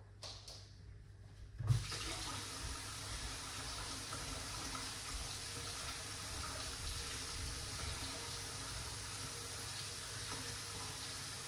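Kitchen tap turned on with a knock about two seconds in, then water running steadily into the sink.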